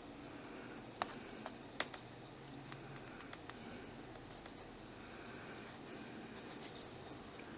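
Faint rubbing of fingers smoothing soft polymer clay, blending a small piece into a larger one, with a few small sharp ticks, the clearest about one second and just under two seconds in.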